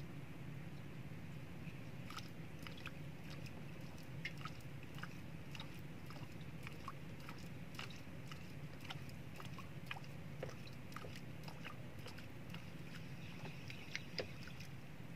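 A spinning reel and ultralight jigging rod being worked while jigging: light, irregular clicks and ticks over a steady low hum, with a couple of slightly sharper ticks near the end.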